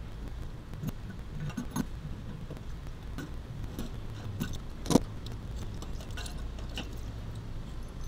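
Metal tools clicking and clinking against the RV water heater's brass pressure relief valve as it is worked loose and unscrewed, with one sharp clank about five seconds in, over a steady low hum.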